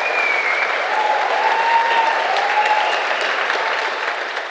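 Audience applauding, a dense steady clapping with a few faint held tones over it, tapering slightly near the end.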